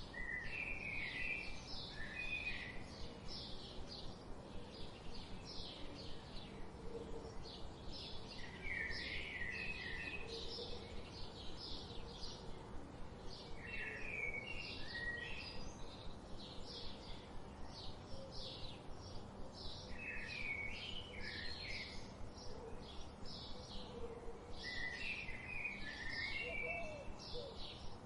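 Forest birdsong: short high chirps repeat steadily about three times a second, while a second bird sings a brief warbling phrase about every five to six seconds.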